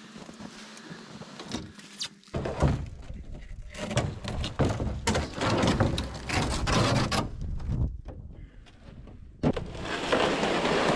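Handling noise in a pickup truck bed: irregular knocks and scrapes of things being moved, then a longer steady scrape near the end as a cardboard-boxed load is slid across the plastic bed liner.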